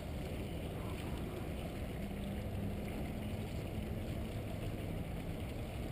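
Steady low outdoor rumble, with a faint held hum for about two seconds in the middle.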